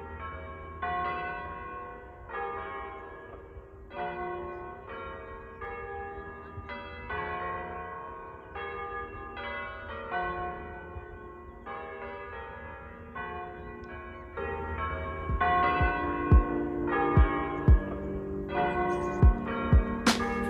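Church bells ringing from a village church tower: a long run of single strikes on bells of different pitches, roughly one every three quarters of a second, each left ringing. About three quarters of the way through, music with deep drum beats fades in under the bells.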